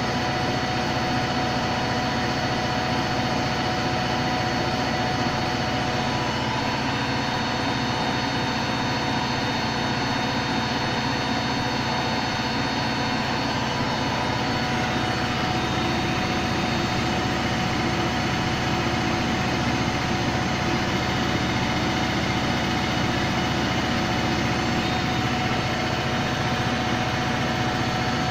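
Hoover Electronic Automatic de luxe washing machine on its spin cycle: motor and drum running at a steady speed, a constant hum with a steady high tone over it.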